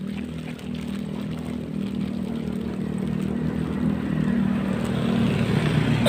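A motor engine drones steadily, growing gradually louder as if a vehicle is approaching, over a low rush of falling water.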